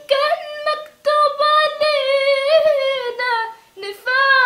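A teenage girl singing unaccompanied in Arabic, holding long high notes on drawn-out vowels with wavering ornaments. She breaks twice for breath, about a second in and near the end.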